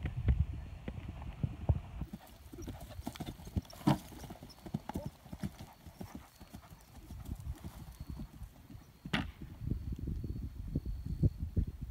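A horse's hooves thudding on grass turf at a canter, with a couple of sharper, louder knocks about four and about nine seconds in.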